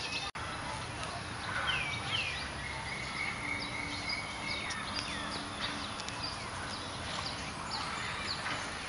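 Outdoor ambience of birds chirping and calling, with two falling whistled notes and then a long held whistle, over a steady background hiss. The sound drops out for an instant just after the start.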